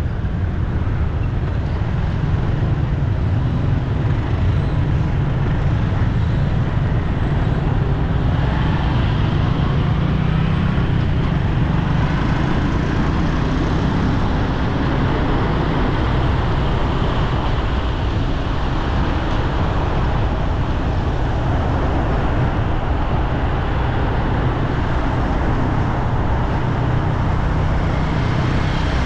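Steady rumble of road traffic, vehicles running past without a break.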